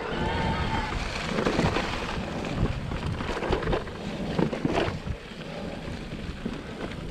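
Riding a mountain bike over a dirt trail: wind rushing on the microphone and tyre noise, with frequent clunks and rattles from the bike over bumps. A short high whine sounds in the first second.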